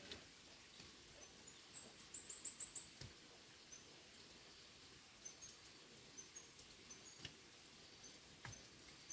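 Faint high-pitched chirping of a small bird: a quick run of about six short chirps around two seconds in, then scattered single chirps, with a few soft knocks in between.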